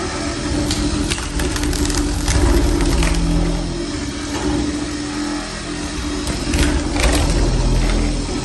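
ROLL-STRIPPER RO-2 floor stripper running with a steady motor hum as its blade peels elastically glued three-layer parquet off the screed, the wood cracking and splintering in sharp bursts a second or two in and again near the end.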